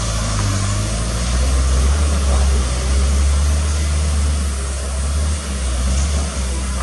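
Diesel dump truck engines running with a loud, low rumble as a small dump truck manoeuvres and turns around on a dirt road, the engine note dropping slightly about two seconds in.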